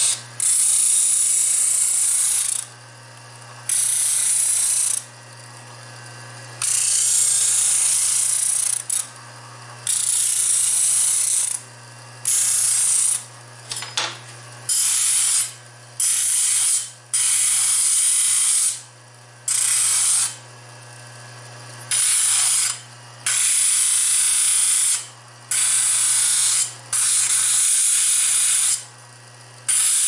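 Homemade bench sander driven by an old 1/4 hp, 1750 rpm single-phase washing-machine motor, humming steadily, while a knife blade is pressed against its spinning sanding disc in about fourteen short passes. Each pass is a harsh abrasive hiss lasting one to two seconds, with the bare motor hum in the gaps.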